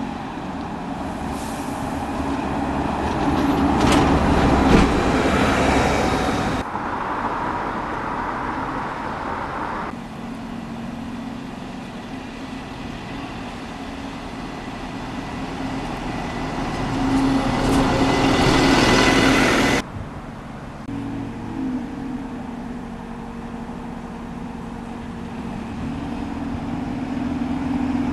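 Large vehicles passing close by, their engine and running noise swelling as each draws near. The sound cuts off suddenly twice, about six and a half seconds in and again near twenty seconds, as one shot gives way to the next.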